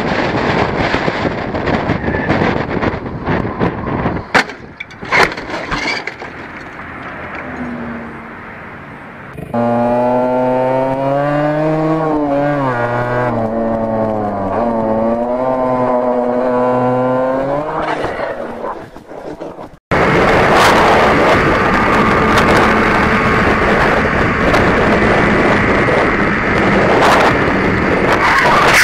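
Motorcycle ride recorded on a rider-mounted camera, in several cut-together clips. First there is engine and wind noise with two sharp knocks about four and five seconds in. Then an off-road motorcycle's engine runs with its pitch rising and falling as the throttle changes. After a sudden cut comes a sportbike at speed, steady loud wind noise over its engine.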